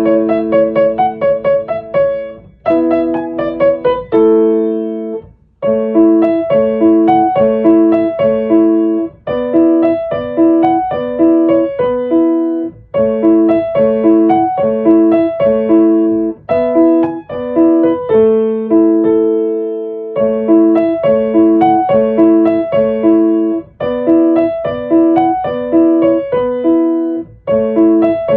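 Solo piano music with a steady, repeating accompaniment pattern and a melody above it, with brief pauses a few seconds in and again partway through.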